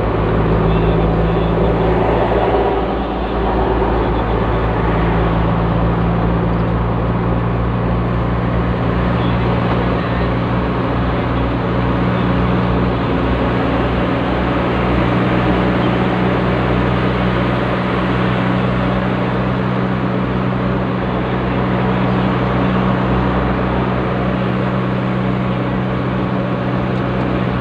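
Diesel vehicle's engine droning steadily with tyre and road noise, heard from inside the cabin while cruising at highway speed. The drone dips briefly about three seconds in.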